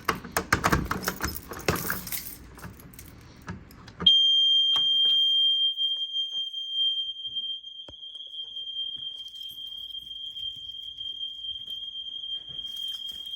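A run of clicks and rattling handling noise, then about four seconds in a fire alarm sounder on a Simplex 4020 system comes on suddenly with one steady high-pitched tone that holds without a break.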